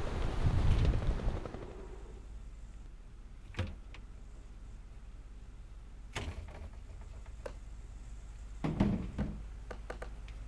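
Wind rushing over the microphone dies away about a second and a half in. A low steady hum follows, broken by three sharp knocks spaced a few seconds apart, the last a short double knock with small clicks after it.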